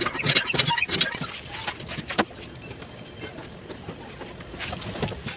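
Small knife cutting into the rind of a whole peeled pineapple: a quick run of short clicks and snips in the first second or so, one sharp cut a little over two seconds in, then lighter scattered cuts.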